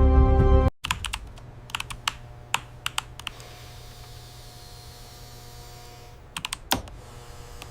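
Music cuts off under a second in, leaving a low steady hum with scattered sharp clicks and taps, in a cluster for a couple of seconds and again near the end.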